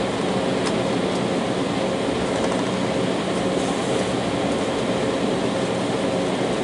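Cabin noise inside a taxiing Embraer 190 over the wing: the twin General Electric CF34 turbofan engines running steadily at taxi power with a steady low hum, heard through the fuselage.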